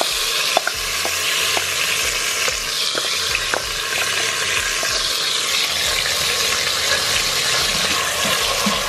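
Marinated rice sizzling as it drops into hot oil in an electric multi-cooker's pot on sauté mode: a steady hiss with scattered crackles. Near the end a wooden spatula starts stirring it.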